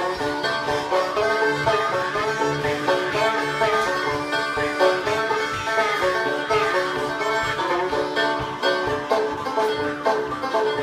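Banjo, harmonica and Jew's harp playing together in an old-time bluegrass jam: the banjo is picked steadily under the harmonica's held, wavering notes, with the twang of the Jew's harp.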